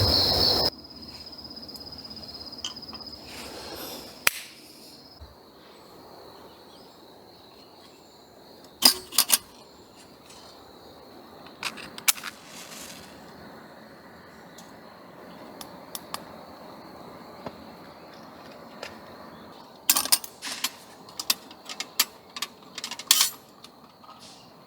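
Crickets or other insects chirring steadily in a high, even tone, with scattered sharp clicks and small clatters, several in a cluster near the end. A louder sound cuts off abruptly just under a second in.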